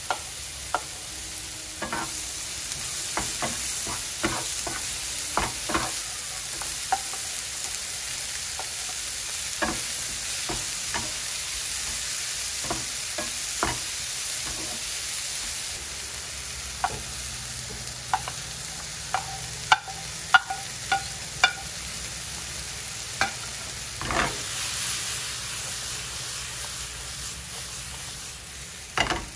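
Chopped vegetables sizzling in a nonstick frying pan, with a wooden spatula clicking and scraping against the pan as it stirs. Near the end the pan is tossed, with a louder rush as the vegetables land.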